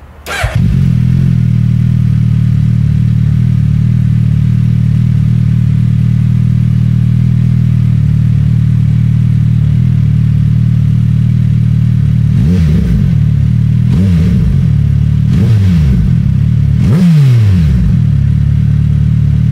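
2021 Suzuki Hayabusa's 1340 cc inline-four through an Akrapovic slip-on silencer with the baffle removed. It starts with a brief starter whir, catches at once and settles into a loud, steady idle. From about twelve seconds in it is revved in four short blips about a second and a half apart, the last the highest, each dropping back to idle.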